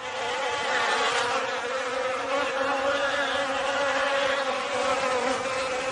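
Bees buzzing: a steady, wavering drone.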